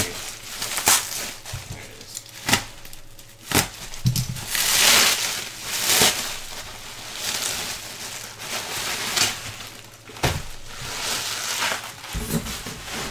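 Plastic bubble wrap being pulled and peeled off a bundle of packed items, rustling and crinkling. Several sharp snaps come at uneven intervals, with a long loud rustle about five seconds in and a few dull knocks as the bundle is handled.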